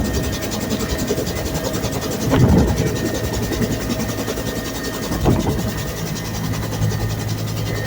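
Bell UH-1 Huey helicopter running: steady turbine whine over rotor noise, with two brief low thumps about two and a half and five seconds in.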